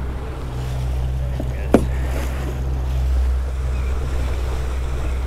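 Outboard motor running steadily at trolling speed, with water churning in the wake and wind on the microphone. A single sharp click a little under two seconds in.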